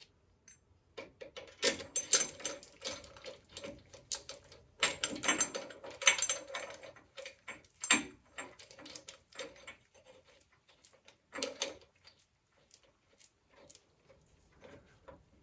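Small steel parts of a threaded press tool clinking and rattling as its spacers, bearing and nut are fitted and turned by hand onto the crankshaft snout. The clicks come in bursts, busiest in the first half, with a few last ones near the end.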